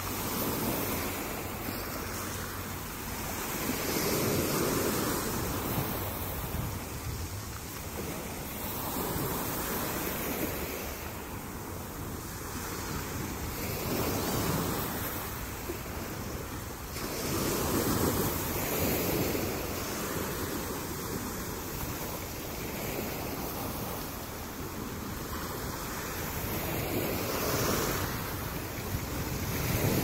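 Small sea waves breaking and washing up a pebble beach. The surf swells and eases about every four to five seconds.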